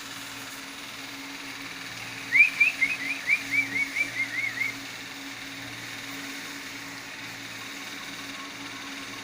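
An animal call: a rapid run of about ten short, high chirps over a couple of seconds, each arching up and down and the run falling slightly in pitch, over a steady low hum.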